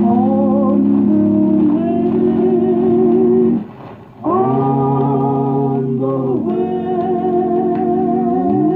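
A record playing music: held, wavering chords that break off briefly a little after three and a half seconds in, then a new chord starts.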